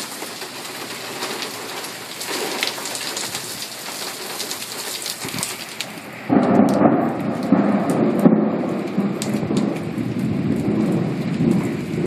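Steady rain falling, with fine pattering drops. About halfway through, thunder breaks in suddenly and loudly and goes on rumbling low.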